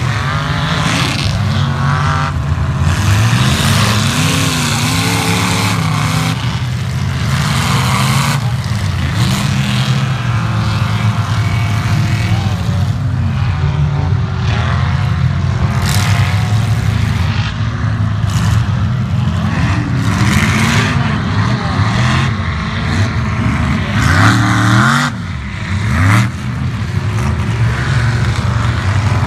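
Lifted mud-bog trucks' engines revving hard through a mud pit, the engine pitch climbing and falling over and over as the throttle is worked.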